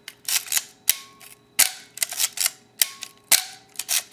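Ricoh KR-5 Super 35mm SLR body being fired again and again, its shutter and mirror giving a sharp clack about every second and a half, with clusters of smaller mechanical clicks between. The body's mirror is prone to sticking, a fault the owner cannot explain.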